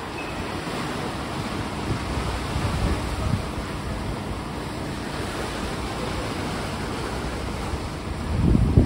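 Sea water surging and washing at the foot of a harbour slipway, with wind buffeting the microphone. A louder rumbling surge comes near the end.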